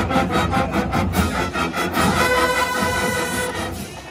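Marching band of brass and sousaphones playing: quick repeated staccato chords, about five a second, for the first two seconds, then a long held chord that fades out near the end.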